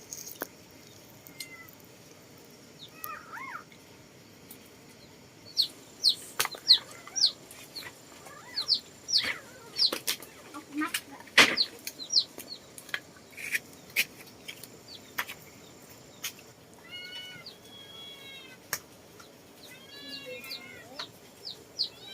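Chickens calling: many short, high, falling peeps and clucks scattered throughout, with a run of repeated clucks near the end, and several sharp clicks in between.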